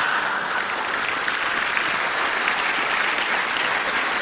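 Live theatre audience applauding steadily, a dense even clapping after a punchline.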